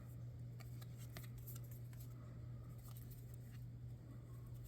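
Trading cards being handled: a few faint, light clicks and slides of card stock, over a steady low electrical hum.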